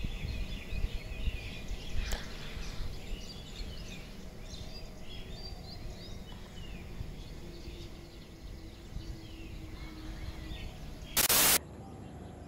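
Many small birds chirping and calling over a steady low background rumble. Near the end comes one brief, loud burst of noise.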